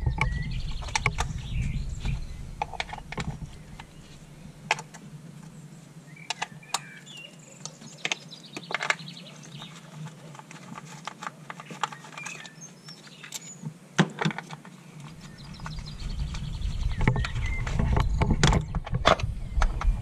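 Hands working on the ignition coil connectors of a three-cylinder petrol engine, making scattered sharp clicks and plastic knocks, with faint bird chirps in the background.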